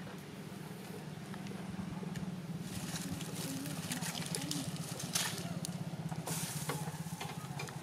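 Dry leaf litter rustling and crackling in irregular bursts as macaques shift about on it, louder in the second half, over a steady low hum.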